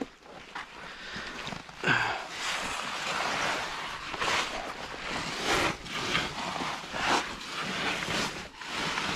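Irregular rustling and scraping of a caver's clothing and gear brushing against moss, ferns and rock while climbing down into a tight cave entrance.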